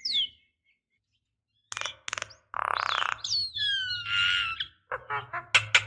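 Javan myna calling: after a short silence, a few sharp clicks, a harsh rasping note, falling whistled notes with a buzzy note among them, then a quick run of clicking chatter near the end.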